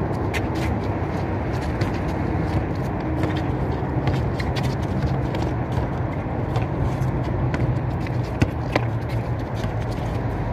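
Basketball bouncing on a concrete court, with sharp knocks at irregular intervals, over a steady background rumble.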